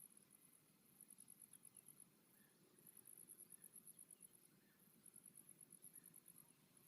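Insects, crickets by the sound of it, chirping faintly and high-pitched in rapid pulse trains about a second long with short pauses between them.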